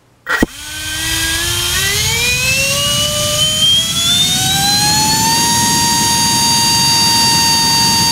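60mm electric ducted fan with a five-blade rotor, driven by a 2850-size 4450 kV inrunner motor on a 4-cell pack, starting with a sharp click and spooling up. A high whine over a rush of air rises in pitch for about five seconds, then holds steady at full power, drawing about 55 amps and close to 800 watts.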